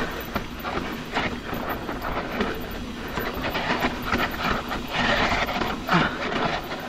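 Mountain bike descending steep, loose dirt: tyres sliding and crunching over loose soil with a constant rattling of the bike, and a hissing rush of noise that swells about five seconds in.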